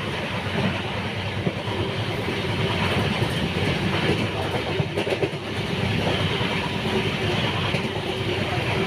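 Express passenger train running along the track: a steady rumble of wheels on rail with faint clatter over the rail joints.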